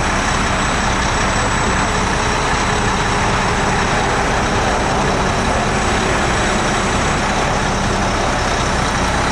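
Truck's diesel engine running steadily with the dump box raised on its hydraulic hoist. It makes a constant, even noise with a faint high-pitched whine over it.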